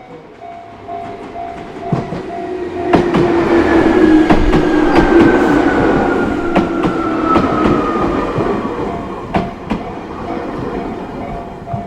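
A train passing over a level crossing. It rumbles, with sharp wheel clacks on the rail joints and a whine that falls slowly in pitch over several seconds. The crossing's warning bell rings on underneath and is drowned out while the train is loudest.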